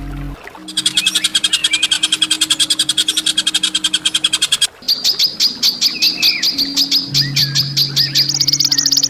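A songbird's harsh, fast rattling trill for about four seconds, then a quick series of sharp, high repeated notes that step up in pitch near the end. A low steady drone sounds beneath.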